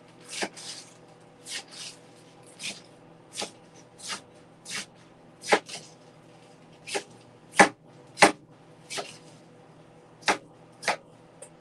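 Knife chopping food on a cutting board: single sharp knocks at an uneven pace, about one or two a second.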